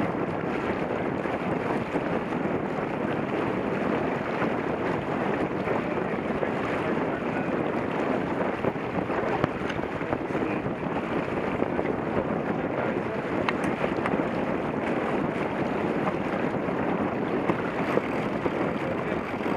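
Steady wind buffeting the microphone over water rushing along the bow of a sailboat under sail, with a couple of faint clicks.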